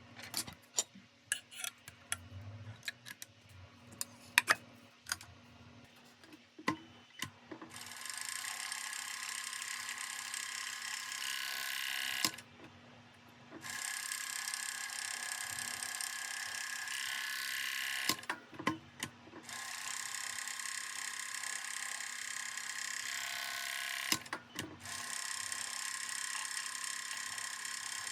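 Several seconds of scattered clicks and knocks of handling, then a sewing machine running at speed in four runs of a few seconds each, with short stops between them.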